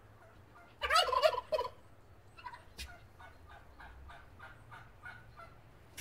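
Male turkey (tom) gobbling: one loud, rapid, warbling gobble about a second in, followed by a string of fainter short calls at about three a second.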